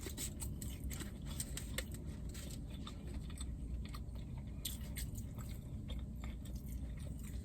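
Close-up chewing and crunching of fried chicken nuggets, with many small crisp clicks as the food is bitten and chewed.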